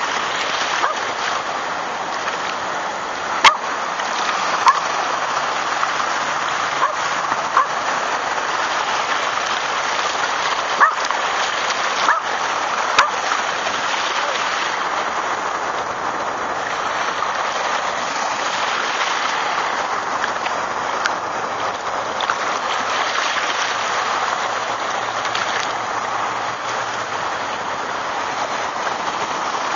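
Steady rush of shallow beach surf washing in, with water splashing around a wading Yorkshire terrier and a few sharp splashes or clicks in the first half.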